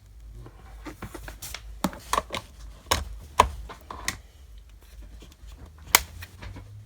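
Irregular clicks, knocks and rustles of hands handling a vacuum cleaner's power cable and plug as it is plugged into a wall socket, with a sharp click about six seconds in, over a low rumble.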